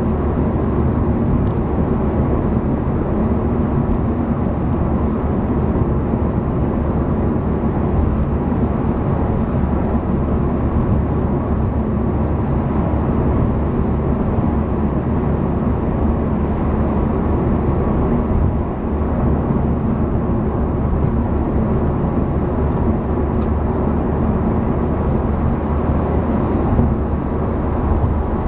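Steady road noise inside a Honda Civic sedan cruising at highway speed: tyre noise on the pavement with a low, even engine hum.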